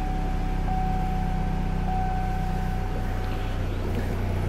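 2006 Pontiac Solstice's 2.4 L Ecotec four-cylinder idling steadily, heard from the driver's seat, with engine oil flush circulating before the oil is drained. A thin steady high tone sits over the idle and fades out past the middle.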